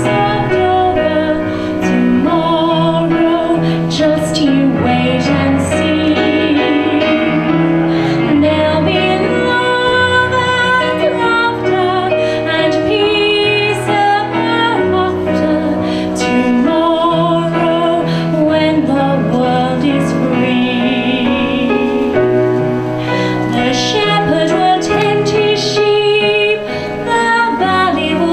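A woman singing into a microphone with vibrato, heard through a small PA, over an electronic keyboard playing chords and a bass line.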